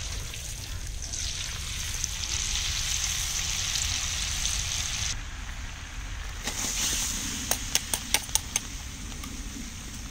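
Butter sizzling and foaming as it melts in a large iron kadai over a fire, a steady hiss that drops suddenly about halfway through. A quick run of five or six sharp crackles comes shortly after.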